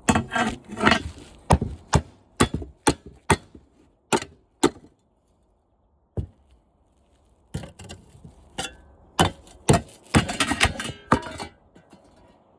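A run of hard whacks on the metal of a window air conditioner's condenser coil (radiator), knocking pieces loose that don't want to come off. The strikes come one after another, pause for a couple of seconds around the middle, then come faster near the end.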